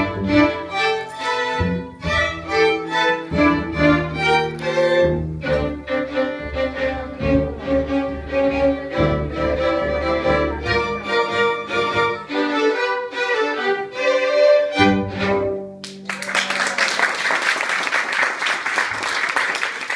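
A string ensemble of violins with low strings plays the closing bars of a piece. Near the end the music stops and audience applause takes over.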